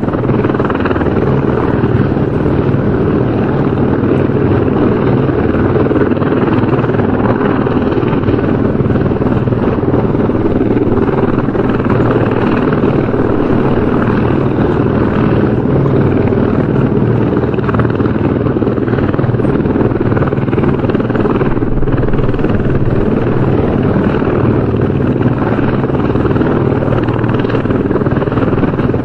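Helicopter running steadily, a continuous rotor and engine noise at an even level.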